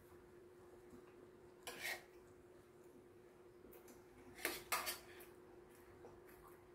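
Metal chopsticks and a metal spoon clinking and scraping against a stainless steel compartment tray: a brief scrape about two seconds in and two quick clinks about four and a half seconds in, over a faint steady hum.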